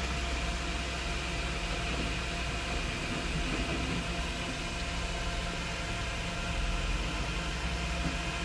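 Dump truck engine running steadily at low revs, a constant low hum under an even noise.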